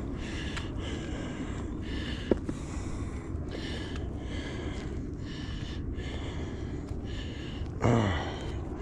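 A person breathing hard and rhythmically from exertion, about two breaths a second. Near the end comes a short, louder groan that falls in pitch.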